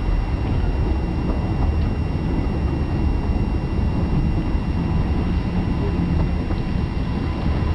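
Steady rumble of narrow-gauge railway carriages running along the track, with wind buffeting the microphone held out of the carriage window.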